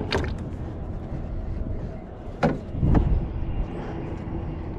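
Knocks on a small metal fishing boat: a light click at the start, then a sharp knock about two and a half seconds in and a heavier thump half a second later. Under them runs a steady low rumble of wind and water.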